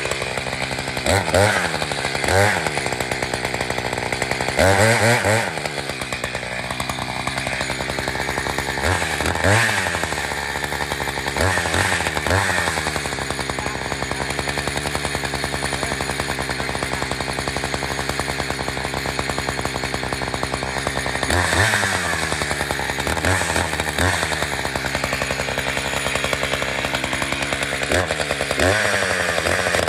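Gas chainsaw running under load through a tree trunk, its engine speed dipping and picking up again a dozen or so times, with a steadier stretch in the middle.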